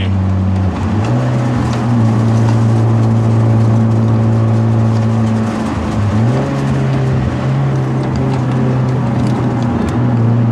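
Genesis Coupe's turbocharged 2.0-litre four-cylinder engine pulling through a winding drive at fairly steady revs. The engine note rises about a second in, then dips briefly about halfway through and again near the end as the throttle is eased and reapplied.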